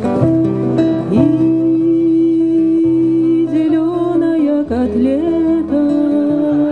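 A woman singing long held notes into a microphone over acoustic guitar accompaniment.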